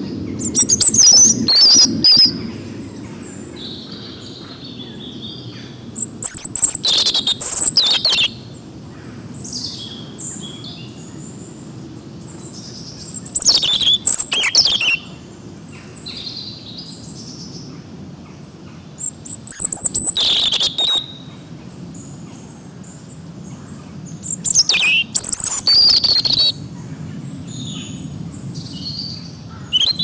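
European robin singing: five loud phrases of high, varied warbling notes, each about two seconds long and several seconds apart, with a sixth starting at the very end. Softer chirps come between the phrases.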